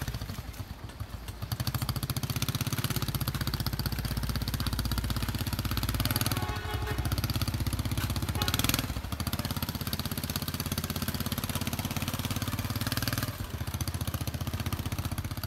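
Small motorcycle engine running at low speed with a steady rapid pulse, easing off briefly about a second in, with a couple of brief noisier flares midway.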